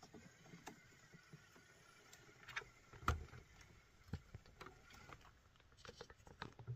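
Scattered faint clicks and knocks of a small TRX-4M-based RC rock crawler working its way over rock, with one heavier thump about three seconds in.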